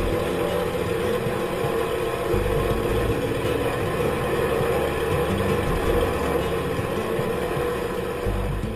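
De Havilland Canada DHC-2 Beaver floatplane's radial engine running steadily at idle as the plane taxis slowly on the water.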